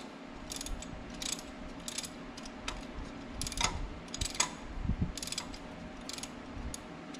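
Hand ratchet and socket clicking in short back-and-forth swings, a quick run of clicks with each swing, as an exhaust manifold bolt is backed out.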